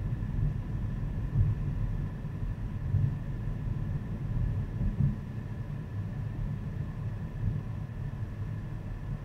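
Car driving at steady speed, heard inside the cabin: a low rumble of road and engine noise that swells and eases a little, with a faint steady whine above it.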